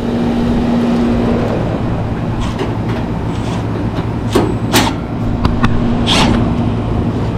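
Steady hum of a neighbouring air-conditioning condenser running, with a low tone that fades in and out. A few short sharp squeaks and clicks come in the middle as screws are backed out of the condenser's top panel.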